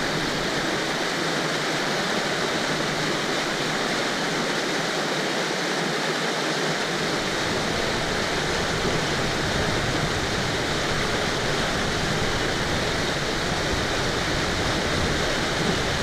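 Mountain river rapids: whitewater rushing steadily over and around boulders.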